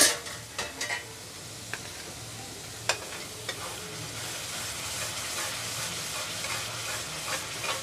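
Spiced onion masala paste sizzling as it fries in a pan, stirred with a spatula. A sharp clank at the very start and a few lighter knocks of the spatula against the pan, then an even sizzle that grows a little louder in the second half.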